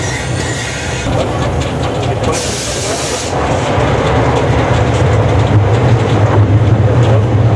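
The Chiemseebahn's 1887 Krauss steam tram locomotive running, heard from its cab: a steady low rumble and rattle of the running gear that grows louder toward the end. About two and a half seconds in comes a hiss of steam lasting about a second.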